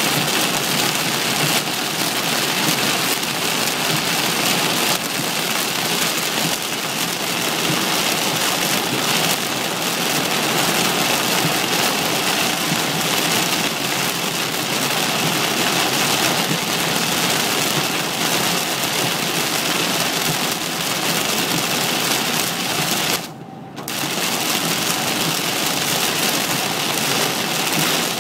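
Heavy, loud rain hitting a car's windshield and roof, heard from inside the car as a dense steady hiss. It dips briefly about three-quarters of the way through.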